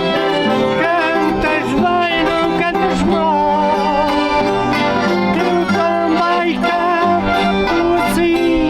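Traditional folk music: voices singing with strings (guitars and fiddle) and accordion, with a steady, dense accompaniment and wavering held melody notes.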